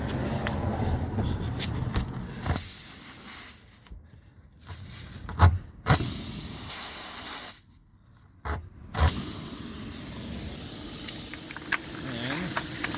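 Air hissing out of a nail puncture in a truck tire as a reamer is worked into the hole, cutting off twice while the hole is blocked and coming back each time, with a couple of short knocks from the tool.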